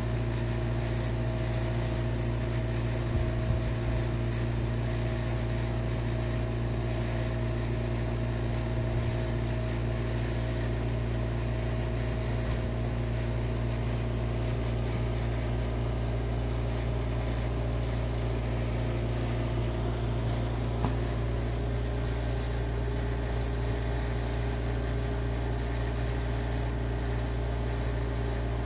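Steady low machine hum, unchanging throughout, with a few faint steady tones above it and a couple of small knocks.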